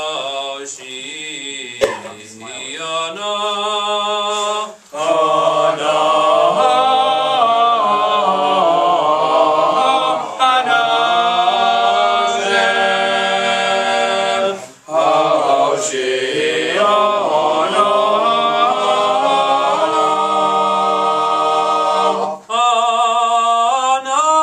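Men's choir singing a cappella in several voice parts, a Hebrew liturgical piece sung with its words. Long held chords move through phrases, with short breaks for breath between them.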